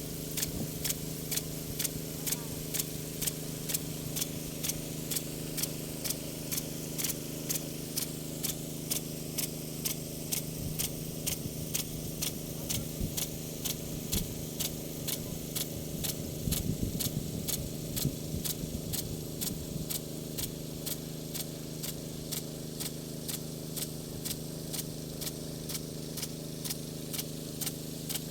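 Big gun rocker-arm sprinkler running, its rocker arm clacking against the water jet in an even rhythm of nearly two clicks a second, over a steady engine-like hum.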